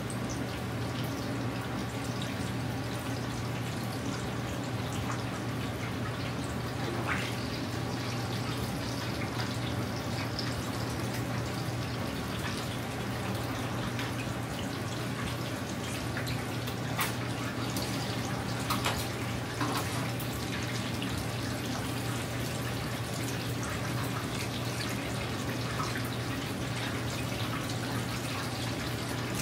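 Karaage chicken pieces deep-frying in hot oil in a commercial twin-vat fryer: a steady sizzling and bubbling of the oil over a low hum, with a few short clicks.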